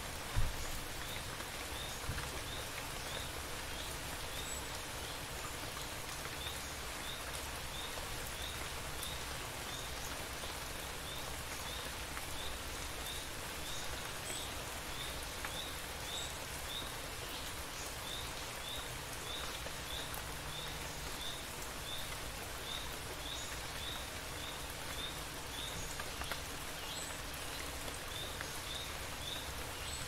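Steady rain falling and pattering on surfaces, with a faint high chirp repeating about twice a second behind it. A single sharp thump comes just after the start.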